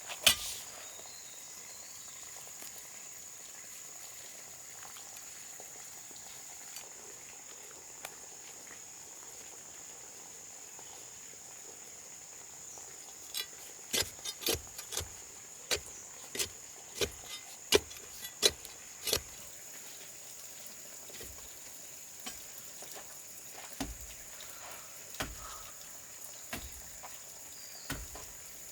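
Insects buzzing in one steady, high pitch. Through the middle there is a quick run of a dozen or so sharp knocks, and a few more come near the end.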